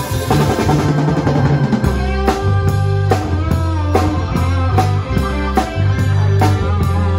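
Live rock band playing: drum kit, electric guitars and bass. The bass and drums get heavier about two seconds in, with a steady beat of drum strokes.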